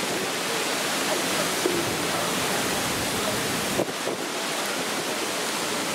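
Steady, even rushing noise, with no clear single source standing out.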